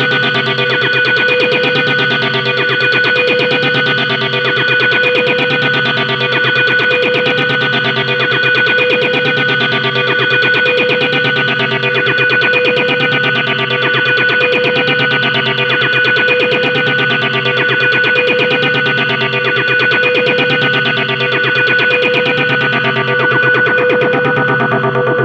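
Dark ambient music: a distorted, effects-laden guitar-like drone with steady sustained tones and a fast, even pulsing texture.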